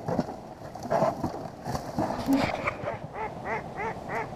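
Live decoy duck quacking in a rapid, evenly spaced series of about three quacks a second, starting about halfway through. A few sharp knocks come before it.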